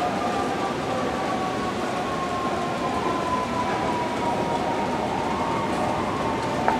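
Vintage New York City subway train running into an elevated station: a steady rumble of wheels on rail under a motor whine that slowly falls in pitch as it slows. A single sharp knock comes near the end.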